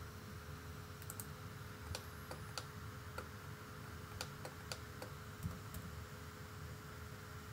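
Faint, scattered clicks of a computer keyboard and mouse being operated, about a dozen spread irregularly, over a low steady hum.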